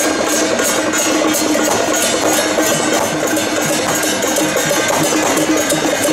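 Temple procession percussion: brass cymbals and gongs beaten in a quick steady rhythm, about three to four strokes a second, over a steady held tone.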